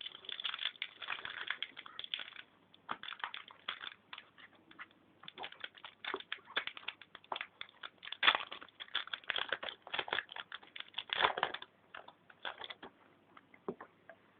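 Crinkling and rustling of foil Yu-Gi-Oh! booster-pack wrappers and trading cards being handled, in quick irregular bursts that die away near the end.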